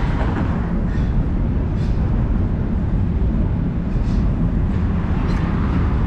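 Steady rumble of city traffic, with a few brief higher-pitched sounds scattered over it.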